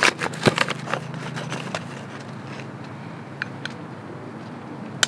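Copper coffee scoop digging into a foil coffee bag and tipping ground coffee into a moka pot's aluminium filter funnel: a quick run of crinkly scrapes and clicks in the first two seconds, two light ticks later on, and one sharp click near the end.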